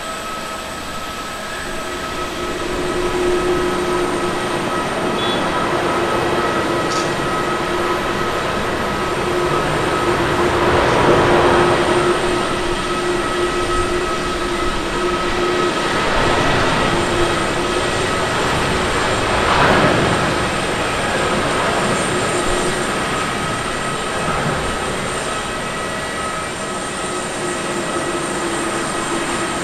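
Jet engines of a Boeing 777-300ER (GE90-115B turbofans) at takeoff thrust: a steady whine over a rushing roar that builds a few seconds in and swells and eases during the takeoff roll and climb-out.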